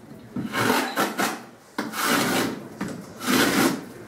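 Repeated rubbing and scraping strokes against a cardboard panel, picked up close by a hand-held microphone.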